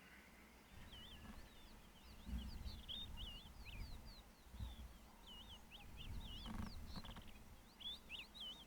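A small bird or birds chirping: a rapid, continuous run of short, high, curling notes, starting about a second in. Low rumbles underneath, a few times, are the loudest moments.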